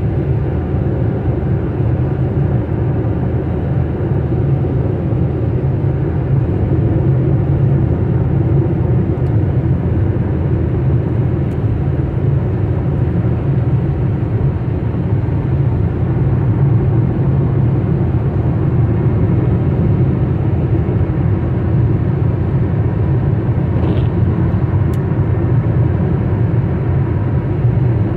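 Car driving at highway speed, heard from inside the cabin: a steady low rumble of tyres on a wet road and the engine.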